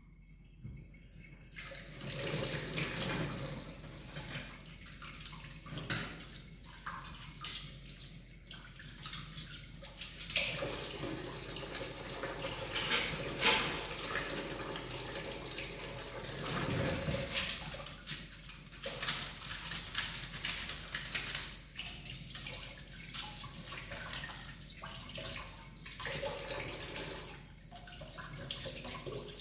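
Kitchen tap running into a stainless steel sink during dishwashing, starting about a second and a half in. Scattered knocks and clatters of pans and utensils against the steel.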